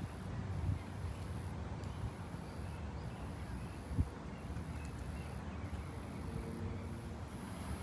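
Outdoor ambience: a low rumble of wind on the microphone under a high, steady insect trill that breaks off briefly about once a second. A single soft knock comes about halfway through, and a faint low hum near the end.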